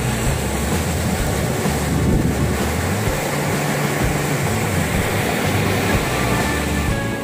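Surf breaking and washing up a sandy beach, with wind buffeting the microphone in an uneven low rumble.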